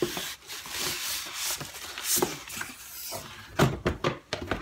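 Cardboard box, foam inserts and plastic bag rustling and scraping as an electric contact grill is pulled out of its packaging, with a few sharp knocks near the end.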